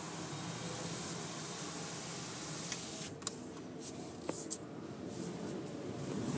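Steady hiss with a low hum heard from inside a car's cabin, growing slightly quieter about three seconds in, with a few faint clicks.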